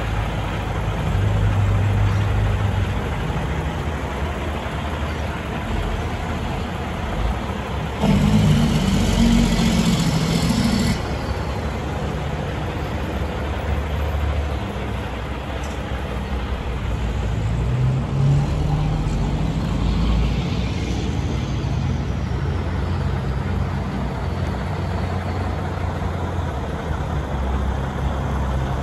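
Heavy diesel truck engine idling steadily, a low, even hum. About eight seconds in it gets louder for roughly three seconds.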